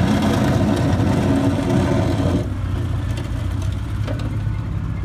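Gehl 2600 skid-steer loader's engine running as the loader drives off, its sound turning quieter and duller about halfway through.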